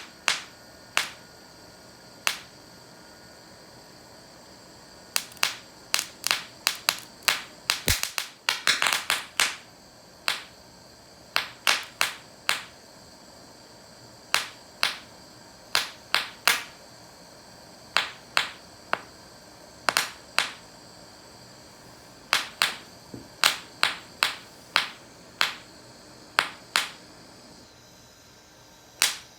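Irregular series of sharp snapping pops from a homemade 'bucket of bangs' firecracker substitute, some single and some in quick runs of two to four.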